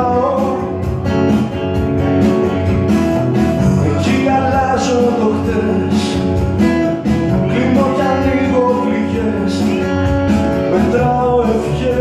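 Live music: an acoustic guitar strummed steadily, with a man singing over it.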